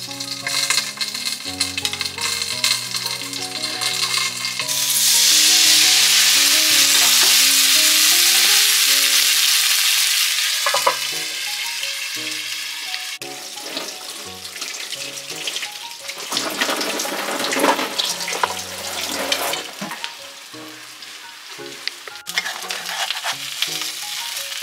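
Gyoza sizzling in a frying pan on a gas stove, with a loud burst of hissing starting about five seconds in and easing off after a few seconds into a quieter, crackling sizzle. Background music with a simple melody plays under it.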